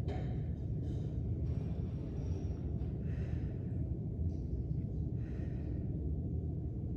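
A person breathing hard with exertion during glute bridges, a breath roughly every second, over a steady low rumble.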